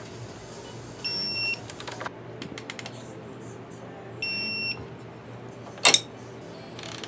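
Digital torque wrench beeping twice, each beep about half a second long, signalling that a brake-line banjo bolt has reached its set torque of 18 newton meters. A few light ratchet clicks come between the beeps, and one sharp knock near the end is the loudest sound.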